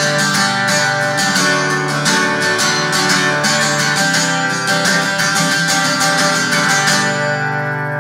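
Large-bodied six-string acoustic guitar strummed in a steady rhythm, the chords ringing; the strumming stops about a second before the end and the last chord rings on and fades.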